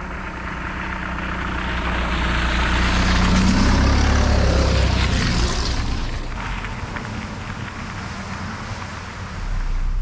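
A car driving slowly over grass and passing close by. Engine and tyre noise grows to a peak about halfway through, then fades away.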